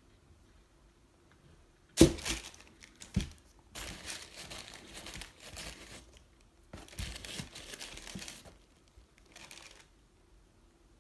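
Tissue paper crinkling and rustling in a shoebox as a leather boot is handled, in several bursts, after a sharp knock about two seconds in.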